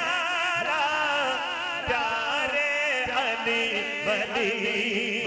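A man singing an Urdu devotional manqabat into a microphone, drawing out long, wavering held notes between the words of the verse.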